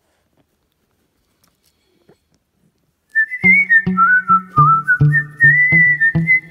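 Near silence with a few faint clicks for about three seconds, then background music starts: a whistled melody over a steady bass beat.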